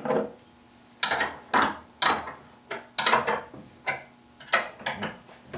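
Steel wrench clinking on the clamp nuts of a barrel vise as the nuts are tightened: a knock as the wrench is picked up, then about ten sharp metallic clicks at irregular intervals, each ringing briefly.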